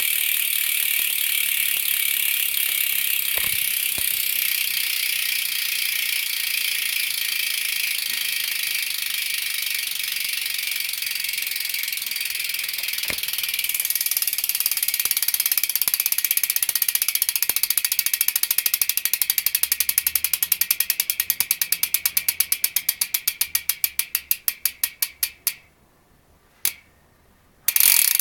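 BSD Backstreet BMX cassette hub freewheeling as the spun rear wheel coasts, its pawls ratcheting in a fast, loud buzz. The buzz breaks into separate clicks that slow steadily and stop about 25 seconds in, with a short burst of clicking near the end.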